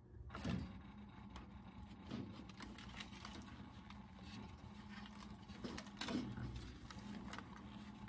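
Faint scrapes and light knocks of a dirty pleated air filter being gripped and slid out of a fan coil unit's filter rack, over a low steady hum.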